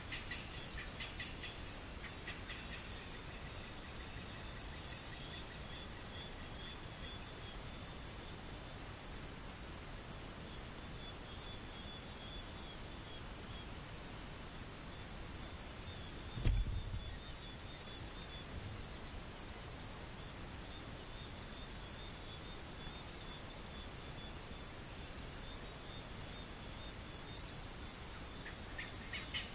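Outdoor ambience dominated by insects chirping steadily, about two and a half chirps a second, over a constant high insect hiss, with a few bird calls near the start. A single brief low thump sounds about halfway through.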